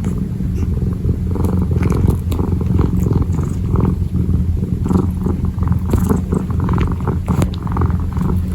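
Kitten purring: a steady, rapidly pulsing low rumble that runs on without a break.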